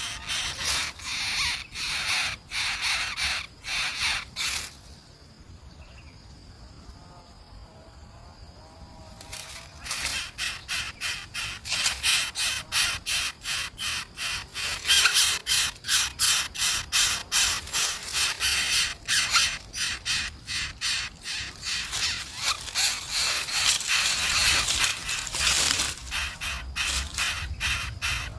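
Birds giving harsh, rapid rasping calls in quick runs, stopping for a few seconds about five seconds in, then resuming louder and denser.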